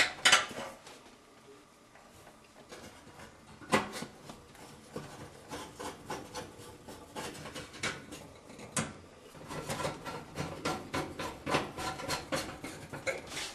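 Hand screwdriver turning a screw at the oven igniter bracket in the sheet-metal floor pan: scraping and rubbing with a few sharp metal clicks, then a run of quick ticks in the last few seconds.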